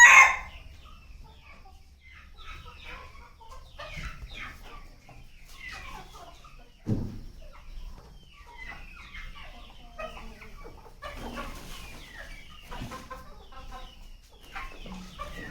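A flock of desi country chickens clucking and calling in short, scattered notes, with a loud call right at the start. A dull thump comes about seven seconds in.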